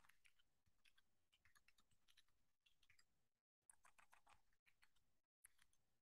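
Faint typing on a computer keyboard: a quick run of keystroke clicks, broken by two short pauses.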